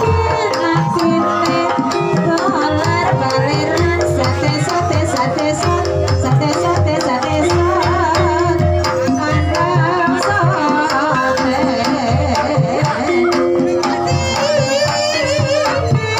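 Live Javanese gamelan music for an ebeg horse-trance dance: a hand drum (kendang) plays a steady driving pattern under the ringing of bronze kettle gongs (bonang), with a wavering singing line coming in and out over it.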